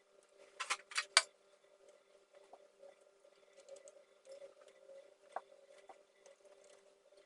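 Small hard clicks and taps of laptop parts and tools being handled: three sharp clicks in quick succession about a second in, then scattered faint ticks.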